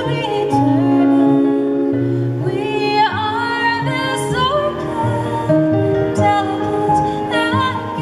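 A woman singing a slow, tender song, with violin and cello bowing beneath her voice in a live chamber-ensemble performance. The sung notes are held and waver in pitch.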